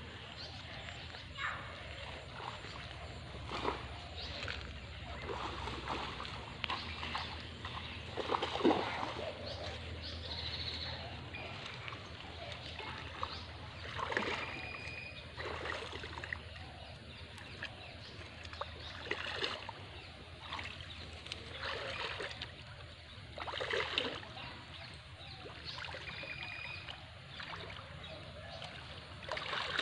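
Shallow water splashing and sloshing irregularly as a person wades and works with his hands in it, in scattered bursts of a second or so.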